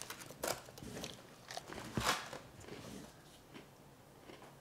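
Faint crunching and a few soft clicks, the loudest about two seconds in, from Oreo cookies being bitten, chewed and laid into a foil pan.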